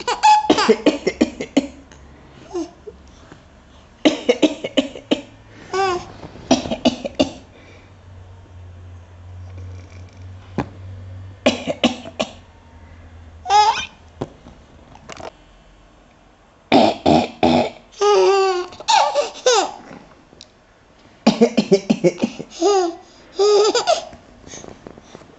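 A baby of about six months laughing in short bursts, each set off by an adult's coughs; cough and laughter come in several bouts with pauses between them.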